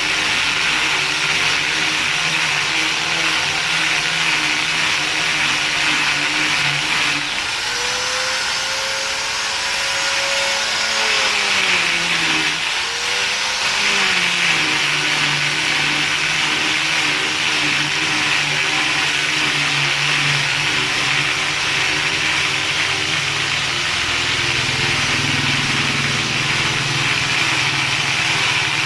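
A motor running steadily, its pitch sinking and then rising back about a third of the way in.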